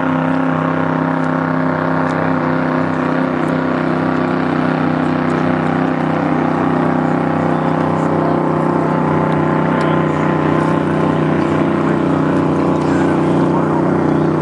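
Grand Prix hydroplane's racing engine running steadily, loud and even in pitch, growing a little louder about six seconds in.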